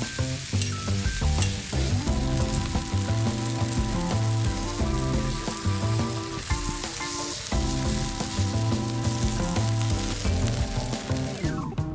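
Food sizzling and frying on a hot iron griddle plate, with background music under it. The sizzle cuts off just before the end, leaving only the music.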